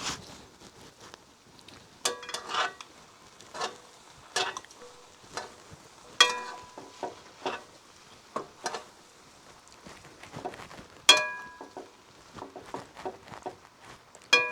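Metal utensils knocking and scraping against a metal pan while noodles are mixed, with sharp ringing clanks, the loudest about two, six and eleven seconds in.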